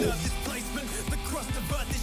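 A rap track playing: rapped vocals over drums and heavy rock backing.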